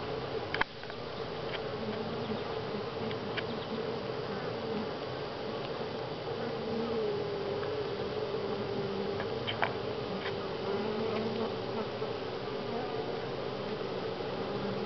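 Honey bees buzzing at a wooden hive: a steady, many-voiced hum that wavers slightly in pitch, with a couple of faint clicks, one about half a second in and one near the middle.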